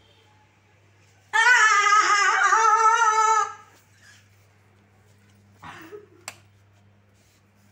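A loud, drawn-out high-pitched cry with a wavering pitch, lasting about two seconds. A couple of seconds later comes a brief softer sound and a sharp click.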